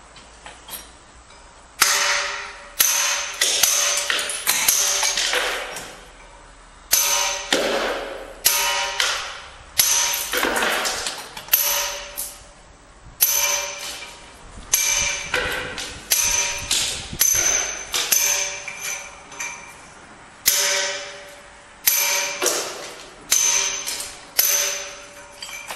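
Hand hammer striking a steel chisel into pink Portuguese marble: sharp ringing metallic blows, about one a second in runs with short pauses, starting about two seconds in.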